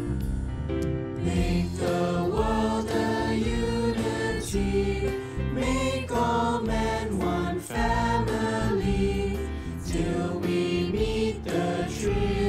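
Choir singing a hymn with instrumental accompaniment, moving from one phrase to the next.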